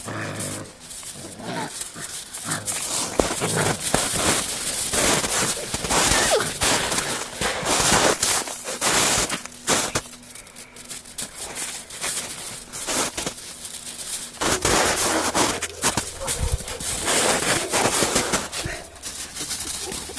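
Snow crunching and crackling in rapid irregular bursts, with 7-week-old Siberian husky puppies growling and yipping as they wrestle and chase in it.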